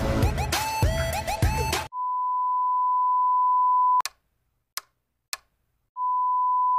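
Music cuts off about two seconds in. Then a steady electronic beep tone sounds for about two seconds, three sharp clicks follow, and the same beep tone starts again near the end.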